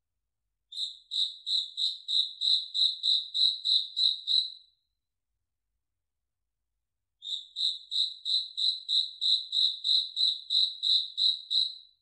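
House cricket chirping: two runs of evenly spaced, high-pitched chirps, about three a second, each run lasting about four seconds with a pause of a couple of seconds between.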